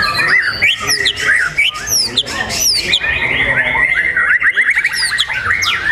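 Songbird singing a fast, varied song of quick falling whistles and chatter, with a rapid run of repeated notes a little after the middle.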